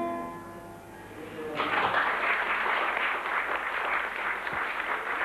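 The last chord of a bandura rings out and fades, then an audience starts applauding about a second and a half in and keeps on.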